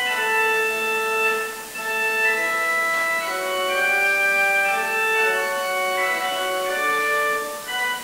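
Church organ playing a slow piece in several parts, with chords of held notes and short breaks between phrases, about two seconds in and near the end.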